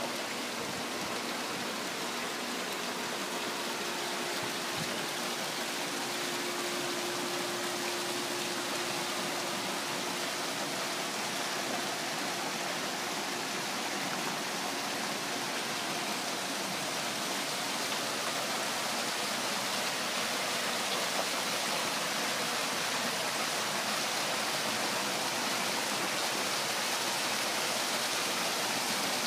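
Backyard rock waterfall pouring into a pool: a steady rush of falling water that grows slightly louder in the second half.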